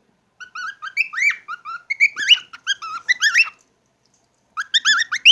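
Pet cockatiel chirping and whistling in a quick run of short notes that rise and fall in pitch, breaking off for about a second past the middle and starting again near the end.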